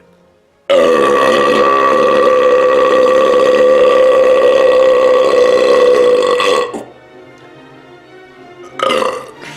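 A man's long, loud burp, held at a steady pitch for about six seconds, after chugging 1.5 liters of fizzy sparkling apple cider. A short second burst follows near the end.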